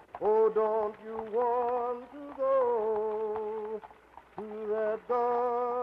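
A lone voice singing a slow, wordless-sounding melody in long held notes. It comes in about five short phrases with brief breaks between them.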